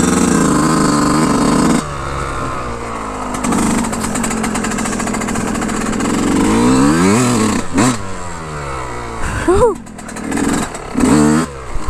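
Yamaha YZ125 two-stroke dirt bike engine running while being ridden. The revs rise and fall with the throttle in the second half, and there is a sharp knock about eight seconds in.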